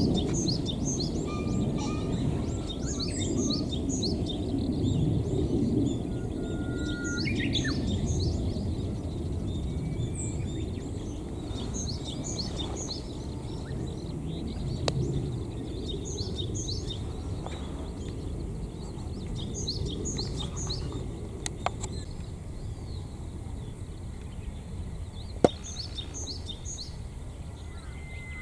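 Small birds chirping: many short, high-pitched notes over a steady low rumble, with a few sharp clicks in the last third.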